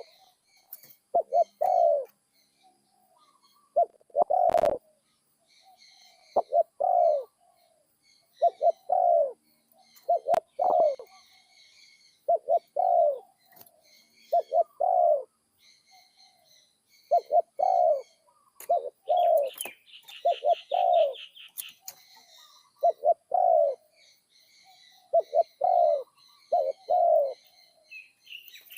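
Captive spotted dove cooing over and over, a short phrase of two or three coos about every two seconds; this is a newly trained decoy bird with a middle-pitched call ending in one 'kuk'. Small birds chirp faintly in the background, with a brief trill about twenty seconds in.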